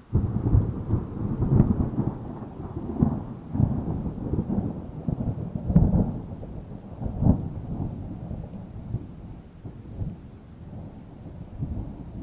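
Thunder breaks suddenly and then rolls on as a long, deep rumble, with several louder cracks in the first half before it slowly fades.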